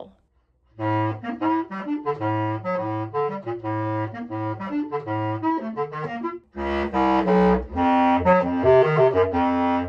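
Bass clarinet playing a run of short, repeated low notes in a heavy metal style. After a brief break about six and a half seconds in, a louder passage follows.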